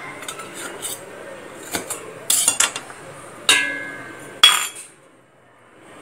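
Stainless steel tumblers clinking and knocking as steamed cakes are tapped out of them onto a steel plate: a handful of sharp metallic knocks, one about three and a half seconds in ringing briefly.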